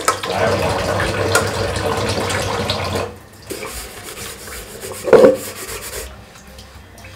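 Tap water running into a kitchen sink while a hand scrubs the inside of a cooking pot. The water stops about three seconds in, leaving quieter rubbing. A single short loud knock comes a little after five seconds.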